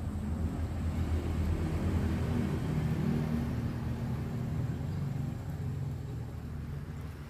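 A motor vehicle passing nearby: a low engine rumble that swells over the first couple of seconds and then slowly fades.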